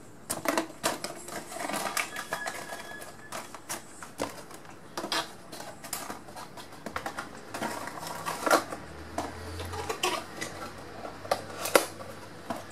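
Bubble wrap and plastic packaging rustling and crinkling as they are handled and packed back into a cardboard box, with many sharp irregular clicks and crackles.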